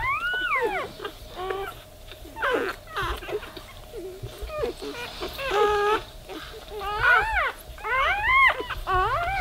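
Newborn Weimaraner puppies squealing and crying: a string of short, high-pitched cries, several rising then falling in pitch, the loudest ones near the end.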